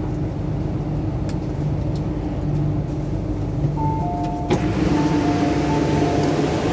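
Inside an MTR Q-Train, a steady low hum with a two-note door chime alternating high and low tones, starting about four seconds in and repeating. Halfway through the chime there is a sharp clunk as the doors open, and the hiss gets louder after it.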